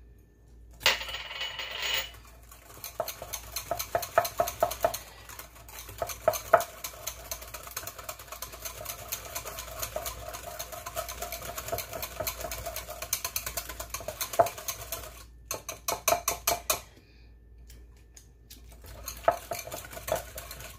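Wire whisk stirring a thick yogurt marinade in a glass bowl, its metal wires clicking rapidly against the glass. A short clatter about a second in, and the stirring stops for a moment near the end before starting again.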